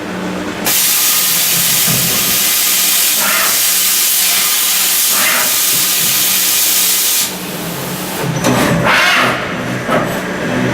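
Dugard Eagle 1000 CNC vertical machining centre running with a low steady hum, while a loud steady hiss switches on about a second in and cuts off suddenly about seven seconds in.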